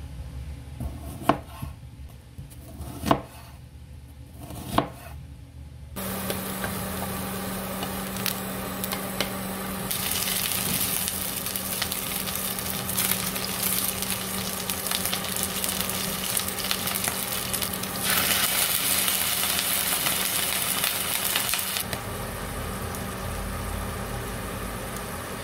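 A kitchen knife cutting a potato on a wooden cutting board, three sharp knocks about two seconds apart. Then, about six seconds in, onion slices sizzling in a nonstick frying pan while being stirred with a spatula, over a steady low hum; the sizzling grows louder about ten seconds in.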